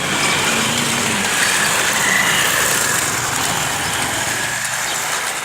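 Road traffic: vehicle engines running steadily.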